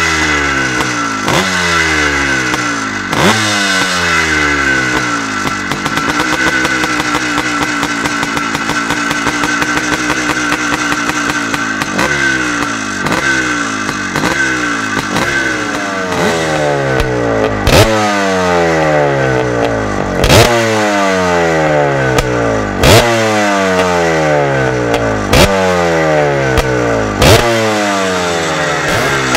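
Vintage air-cooled single-cylinder two-stroke dirt bike engine being revved on the stand: the throttle is blipped again and again, each rev climbing quickly and dying away. In the middle it is held at a steady speed for several seconds. From about halfway, blips come about every two and a half seconds, several of them with a sharp crack.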